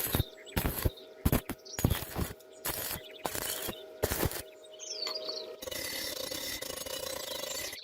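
Irregular sharp mechanical clicks and knocks, several a second, for the first four seconds or so, then a steady hiss from a little past halfway to the end.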